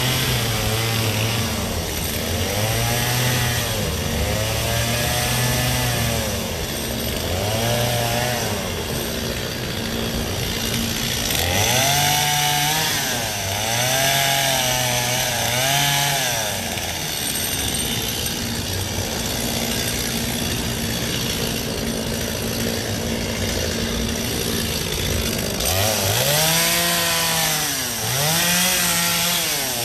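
Gas chainsaw cutting ice, its two-stroke engine revving up and dropping back again and again, with a steadier stretch of running about halfway through.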